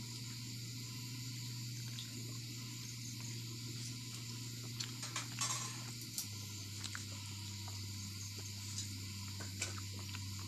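Hands tearing a roti and working it into soft semolina on a steel plate: a few light clicks and a short rustle about halfway through, over a steady low hum and hiss.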